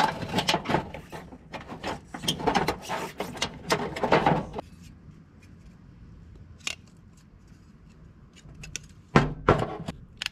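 Hand-held tin snips cutting through zinc sheet flashing: a run of crunching snip strokes over the first four and a half seconds. Then quieter handling with a single sharp click, and another short loud burst of metal noise near the end.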